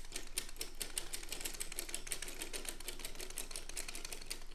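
Original-model Dean and Bean's circular sock machine cranked by hand through half a row: a steady, rapid clicking as the latch needles ride up and down through the cams.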